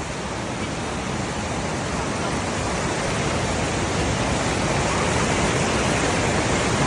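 Rushing water of a waterfall: a steady noise that grows gradually louder.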